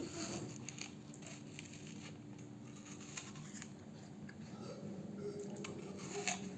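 Faint chewing and crunching of food, with small irregular clicks and one louder crunch near the end.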